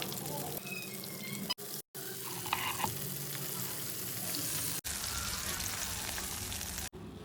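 Breaded chicken pieces deep-frying in hot oil, a steady crackling sizzle. The sound drops out briefly a few times.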